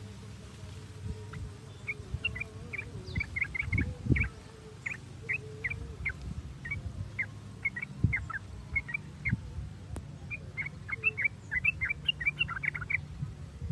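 Yellow-vented bulbul (trucukan) chattering and calling: quick clusters of short, sharp notes, over a faint steady low hum.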